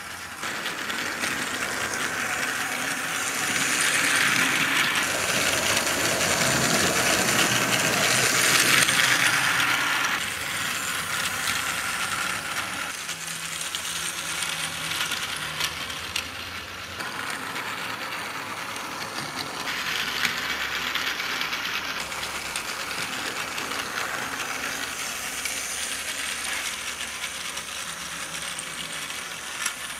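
Battery-powered knockoff Tomy-style Thomas toy train running on blue plastic track, its small motor and plastic gears whirring and rattling. It is louder from about three to ten seconds in.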